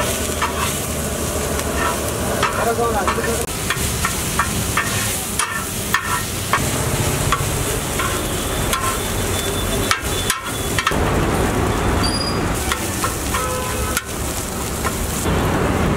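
Metal spatula scraping and clacking against a flat iron griddle (tawa) as a vegetable and spice filling is stirred and mashed, in many short irregular strokes over a steady sizzle of frying.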